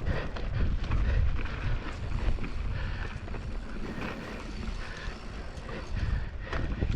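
Wind buffeting the microphone over the clatter of a mountain bike rolling fast down a rough trail, with many short rattles and knocks as it goes over bumps.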